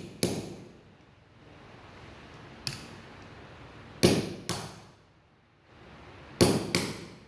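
Hammer blows driving a ball bearing into a brush cutter's gear head, about six sharp metallic strikes with a ring, a couple of them in quick pairs, to seat the bearing flush.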